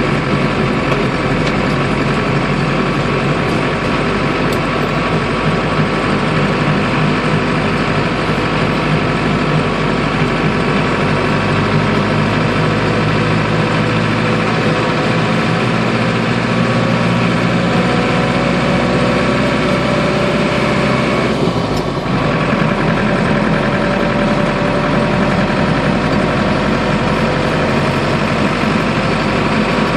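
Turbo diesel engine from a 2002 Land Rover Defender, fitted in a Series 109, running steadily under way. Its note climbs slowly, then briefly drops in level about two-thirds of the way through before carrying on.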